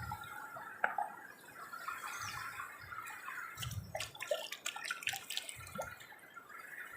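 River water splashing and dripping, with a few light clicks and soft low thuds scattered through it.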